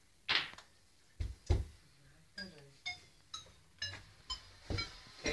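Pool balls knocking together: sharp clacks and knocks, two heavier ones in the first second and a half, then a fairly even run of about two a second, some leaving a short bright ring.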